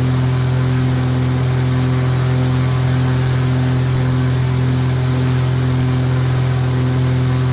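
A Cessna Stationair's single piston engine and propeller running in a steady, loud drone with a strong low hum.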